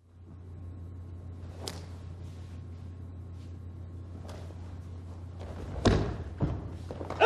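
Martial-arts grappling on a mat: the swish of cotton uniforms early on, then the heavy thud of a body taken down onto the mat about six seconds in, with a smaller thud just after, over a steady low hum.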